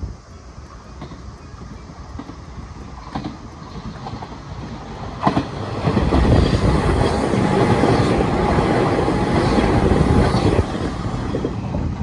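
A train passing on the rails: the sound builds over the first few seconds, is loudest from about halfway until shortly before the end, then eases off.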